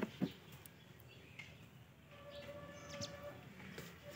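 Mostly quiet: two soft clicks near the start, then a faint bird call held for about a second and a half near the end.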